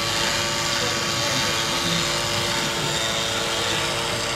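Steady machine drone, an even whirring noise with a constant hum in it, unchanging throughout.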